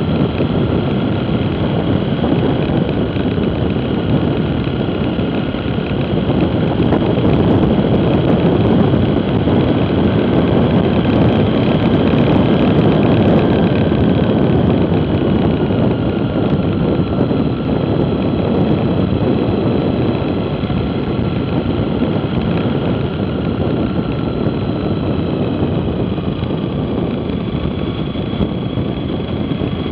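Motorcycle running at road speed, its engine note under heavy wind rush. It grows louder about a third of the way in as the bike speeds up, then eases off a little.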